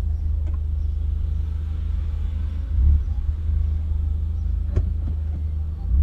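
Low, steady rumble inside a Volkswagen Saveiro's cab as it drives, with a faint click about five seconds in.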